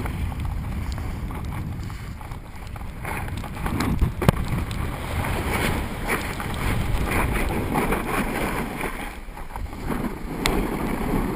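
Wind rushing over the microphone and a snowboard sliding and carving down packed snow, its base and edges scraping. A couple of sharp knocks come about four seconds in.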